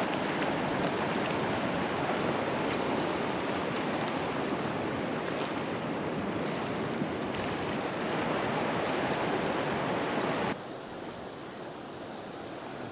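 Fast-flowing river water rushing steadily; the sound drops abruptly to a quieter level about ten and a half seconds in.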